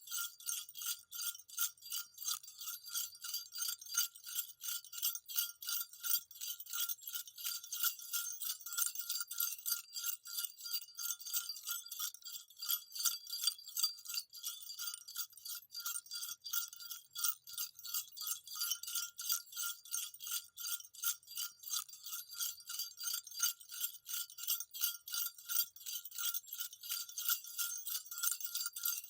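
Small jingle bells shaken in a steady, continuous rhythm, about three or four jingles a second, bright and high-pitched.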